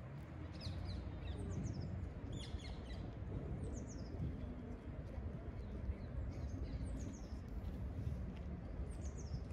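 Birds chirping in short, high calls that fall in pitch, coming in small clusters every second or two, over a steady low rumble.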